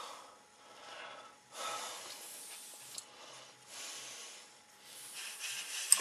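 Airbrush spraying with a hiss in about five short bursts of roughly a second each.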